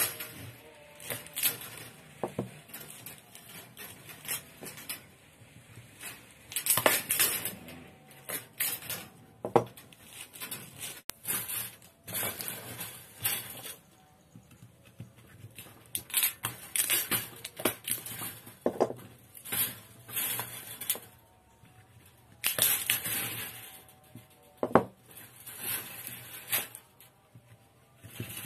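Steel bandsaw blade being drawn by hand past a fixed lathe tool bit that slits it lengthwise: repeated bursts of metallic scraping and rattling, each about a second long, with short pauses between strokes.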